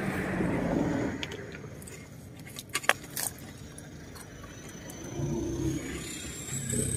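A road vehicle passing by, its noise swelling and fading within the first two seconds. Then a few sharp clicks and taps about three seconds in.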